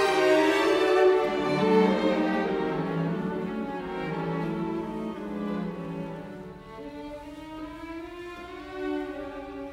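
Background music: a slow string piece, violin and cello, with long held notes, growing quieter over the first several seconds.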